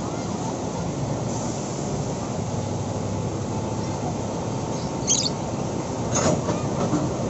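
Diesel engines of Plasser & Theurer track maintenance machines running steadily, with two brief high metallic squeaks, one about five seconds in and a louder one about a second later.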